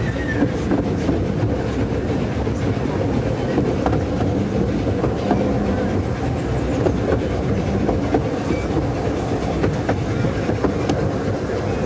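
A 12¼-inch gauge miniature steam railway train running steadily along the track: a continuous low rumble with scattered clicks of the wheels over the rails.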